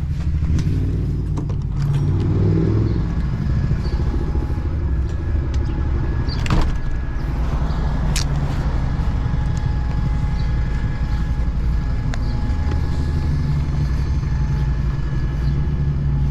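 A motor vehicle running with a steady low rumble, with two sharp knocks about six and eight seconds in.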